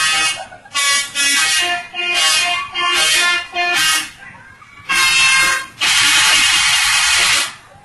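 Indonesian bus 'telolet' multi-tone air horn playing a tune: a run of short tooted notes at changing pitches. Near the end comes a longer, rougher blast.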